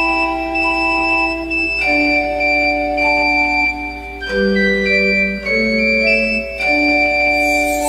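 Instrumental interlude of a children's nursery-rhyme song, played on an organ-like electronic keyboard: held chords with a simple melody, changing every second or two.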